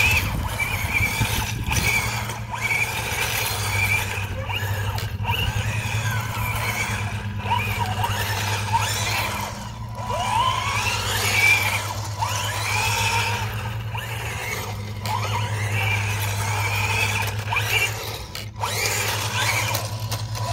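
BWINE Q111 1:12-scale RC tank driving on asphalt: its electric drive motors and tracks run loudly with a steady hum. A whine rises and falls with the throttle, and there are several brief drops as it stops and changes direction.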